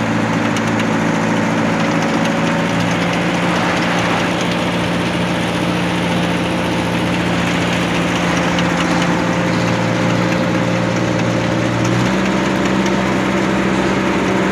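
Asphalt paver's engine running steadily at close range, its note changing about twelve seconds in.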